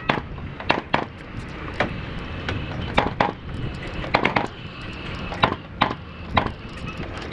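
Nail gun firing nails into timber roof trusses: about fifteen sharp cracks, irregularly spaced, some coming in quick pairs.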